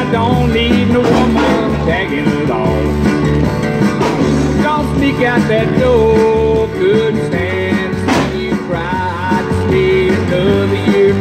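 Music with a singing voice and guitar over a steady bass beat.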